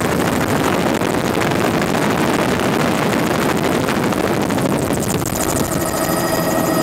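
Helicopter in flight heard from inside the cabin: a loud, steady din of rotor and engine. About five seconds in, a steady whine of several pitches comes in over it.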